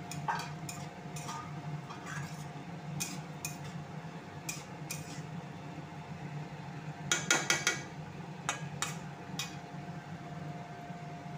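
Metal spatula scraping and clinking against a metal kadhai while stirring chopped radish leaves. The strokes are scattered, with a quick cluster about seven seconds in, over a steady low hum.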